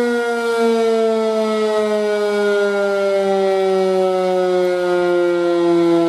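ACA Screamer S-2 outdoor warning siren sounding its continuous alert tone, a loud wail with two notes whose pitch slides slowly downward.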